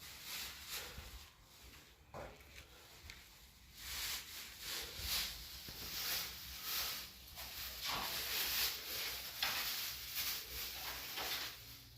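Hand-tool work on metal: irregular scraping and clicking strokes, a fraction of a second each, as a wrench snugs down the bolts of a car's upper control arms. The strokes come more often after about four seconds in.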